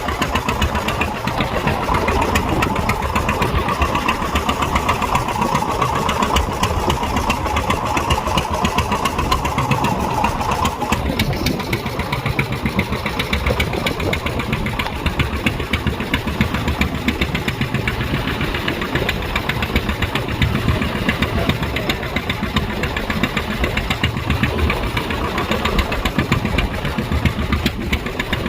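A fishing boat's engine running steadily with a rapid, even beat; a higher hum on top of it fades out about ten seconds in.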